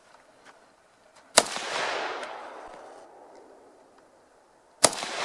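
Two single gunshots about three and a half seconds apart, each a sharp crack that rings out and fades over a second or two.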